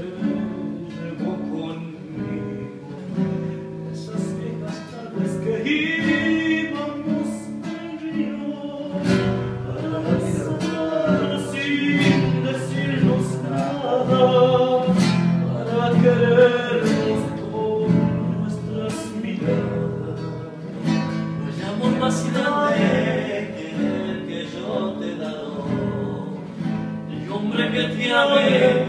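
Acoustic guitar strummed as accompaniment to men singing, the voices growing stronger a few seconds in.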